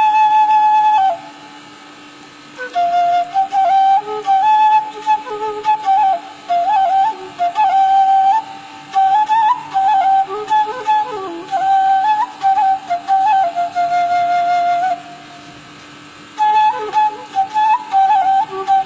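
Bamboo flute (seruling) playing a slow, ornamented melody in phrases, with a pause for breath about a second in and another about three-quarters of the way through, over a faint steady hum.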